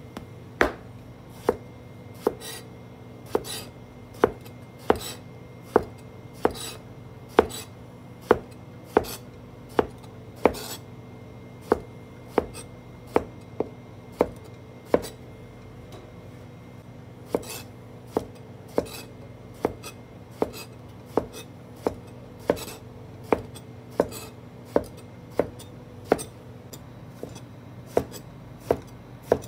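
Kitchen knife chopping peeled long eggplant into rolling-cut chunks on a cutting board: a steady run of sharp knocks, a little faster than one a second, with a pause of about two seconds just past the middle. A steady low hum runs underneath.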